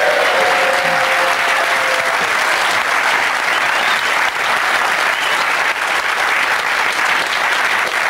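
Studio audience applauding steadily and loudly.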